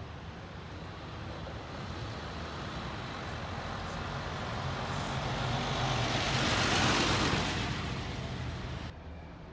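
A street vehicle passing by. The noise swells to its loudest about seven seconds in, fades, and then cuts off suddenly near the end.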